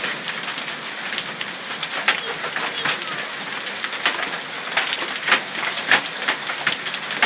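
Hail and heavy rain falling: a steady hiss of rain, broken all through by sharp, irregular clicks of hailstones striking hard surfaces.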